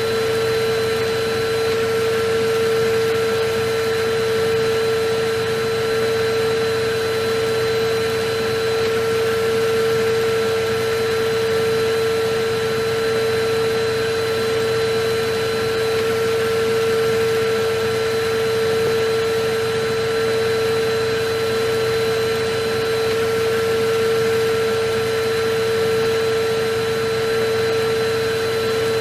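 Electric vacuum cleaner running steadily without a break: a constant hum-whine over an even rushing hiss, with only a slow, gentle swell in loudness.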